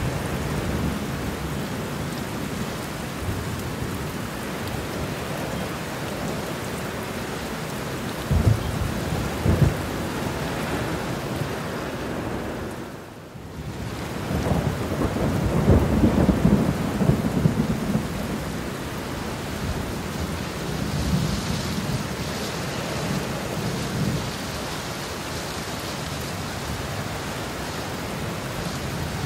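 Steady heavy rain with thunder. A couple of short low claps come about a third of the way in. The sound dips briefly near the middle, then a long roll of thunder swells and fades.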